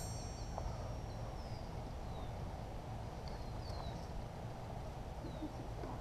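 Steady outdoor noise, with the high ring of a steel sword contact fading away in the first second and a few short, falling bird chirps scattered through.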